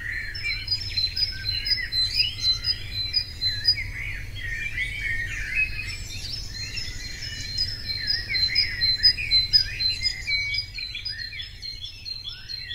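A chorus of many birds chirping and warbling together, with one short high note repeated again and again, over a steady low hum.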